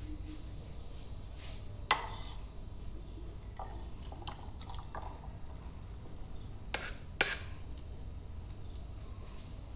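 A metal spoon clinking and scraping against a metal wok as cooked noodles are tipped out into a bowl. There are a few sharp clanks, the loudest about two seconds in and two more close together near seven seconds.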